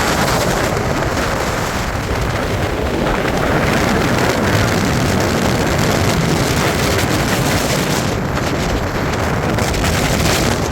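Gale-force wind in 60–70 mph gusts buffeting the microphone: a loud, continuous blustering noise that swells and eases with the gusts.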